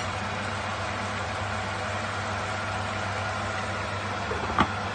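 A glass pot lid is set down on a wok of simmering chicken soup, giving one sharp clink near the end, over a steady low hum and hiss.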